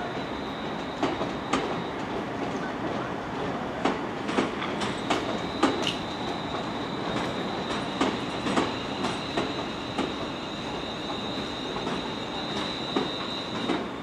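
A train running on the track: a steady rumble with a thin high whine, and irregular clicks and knocks from the wheels over rail joints.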